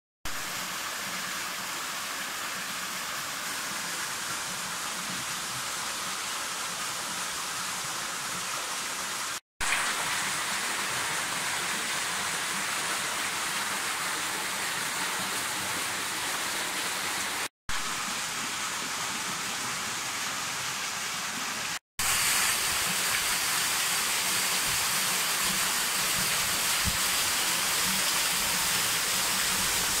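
Small waterfall splashing into a rock pool: a steady rush of falling water, broken three times by brief dropouts where takes are cut together, and a little louder after the last cut.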